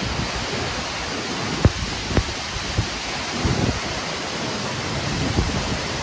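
Tall waterfall pouring into its pool, a dense steady rush of falling water. A few brief low knocks of wind hit the microphone about two seconds in.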